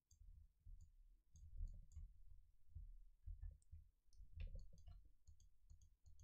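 Faint computer mouse clicking: a dozen or so scattered small clicks, with low dull rumbles between them.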